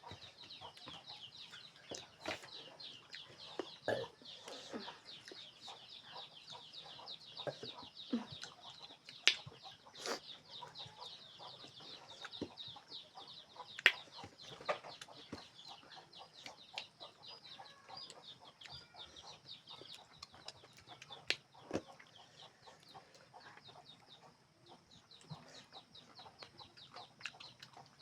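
Continuous fast, high chirping of birds, with scattered sharp clicks and mouth sounds of someone eating fruit close to the microphone.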